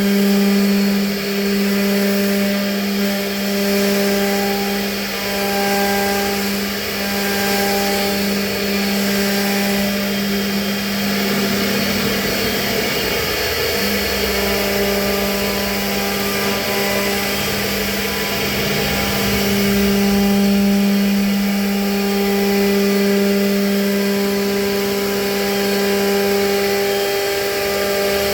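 CNC router spindle running with a steady hum while its bit cuts a WPC door panel, the tone dipping briefly every second or two as the cut goes on. A rougher cutting noise is heard about twelve seconds in.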